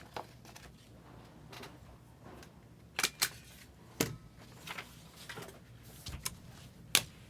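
Scattered sharp clicks and taps, a few seconds apart, the loudest about three, four and seven seconds in.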